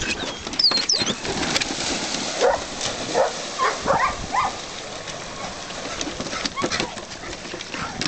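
Poodles whining and crying in a series of short pitched yelps, about six through the middle, the sound of dogs waiting their turn to swim.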